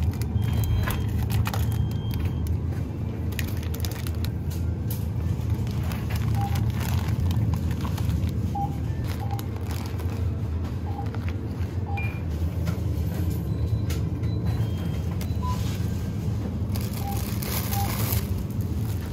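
Plastic food packs crinkling and tapping as they are handled and dropped into a plastic shopping basket, with many short crackles and clicks over a steady low hum. Light music plays in the background.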